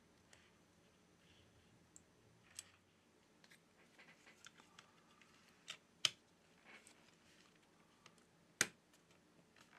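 Light plastic clicks and taps as tweezers and fingertips press small parts onto an opened smartphone's circuit board. Two sharper snaps, one about six seconds in and one near the end, as the plastic board cover is pressed down and clips into place.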